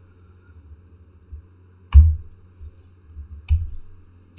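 A few sharp clicks of a computer being operated: the loudest about two seconds in, another about three and a half seconds in and one at the very end, with a couple of fainter ticks between, over a low steady hum.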